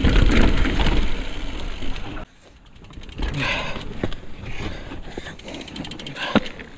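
Mountain bike ridden over a rocky trail, with wind rumbling on the camera microphone and the bike rattling. About two seconds in the noise drops off abruptly to quieter rolling and scattered clicks, with one sharp click near the end.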